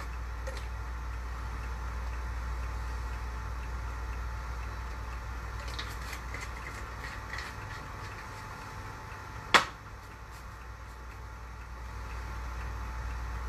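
Steady low mechanical hum with a faint steady high tone, and one sharp click a little under ten seconds in.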